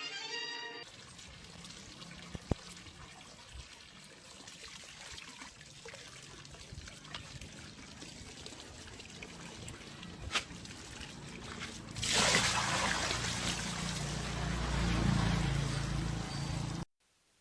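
Faint background noise with a few sharp clicks, then a louder rush of running water starting about three quarters of the way in and cutting off suddenly.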